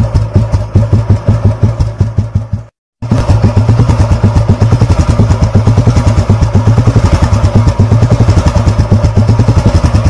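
Old Royal Enfield Bullet single-cylinder engine idling through its silencer with an even, slow exhaust beat. The sound cuts out abruptly about three seconds in, then a Bullet idles again at a slightly quicker beat.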